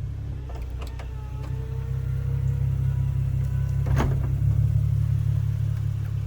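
2010 Infiniti G37 convertible's power retractable hardtop running as it tries to close: a steady motor hum with a faint whine and a few sharp mechanical clicks, the loudest about four seconds in. The top gets stuck short of fully closed, which the owner puts down to the windshield latch engaging too soon.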